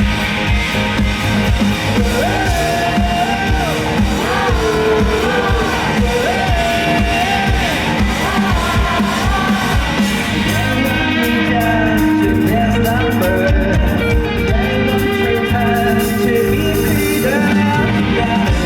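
Live rock band playing a song with drums, bass and guitar under a sung melody line that comes in a couple of seconds in. About halfway through, the bright top end thins out while the beat carries on.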